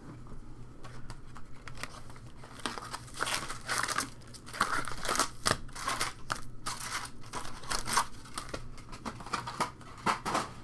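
Foil wrappers of Topps Stadium Club trading card packs crinkling and rustling as the packs are handled, in irregular crackles that grow busier a couple of seconds in.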